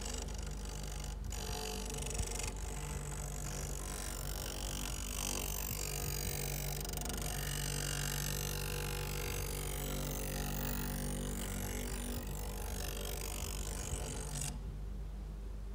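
Bench grinder motor running with a steady hum while a steel blade is ground against its wheel, a continuous grinding hiss. About a second before the end the grinding stops and only the motor hum goes on.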